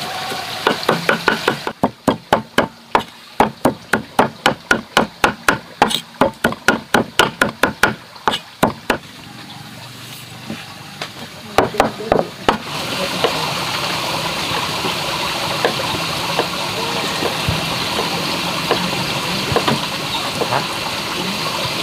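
A knife chopping on a cutting board in quick, even strokes, about three a second for several seconds, then a few scattered knocks. After that comes a steady hiss of running water.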